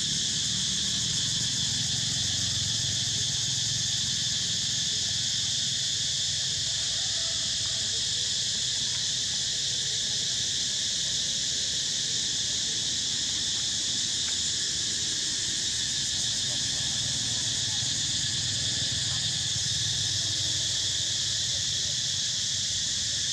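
Steady, high-pitched chorus of insects, unchanging throughout.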